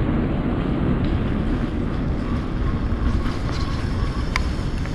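Wind rumbling on the microphone and road noise from a bicycle in motion, a steady low haze, with a few light clicks near the end.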